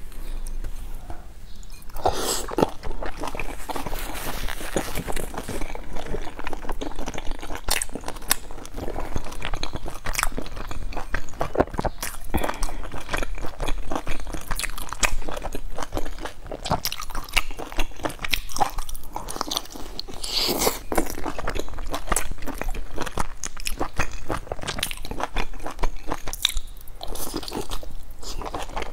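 Close-miked eating: a person bites into and chews large pan-fried buns with crisp browned bottoms, giving a dense run of crunches and mouth clicks.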